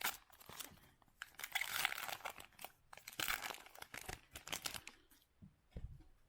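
Crinkling and rustling as baseball cards and their packaging are handled, in irregular bursts that are loudest around the middle and die away near the end.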